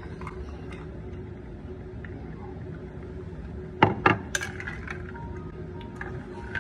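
Quiet room tone with a faint steady hum, broken about four seconds in by three quick sharp clicks or knocks.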